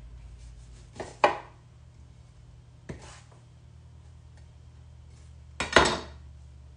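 A knife cutting a lime on a wooden cutting board: a few sharp knocks of the blade on the wood, two close together about a second in, one near three seconds, and a louder pair near the end.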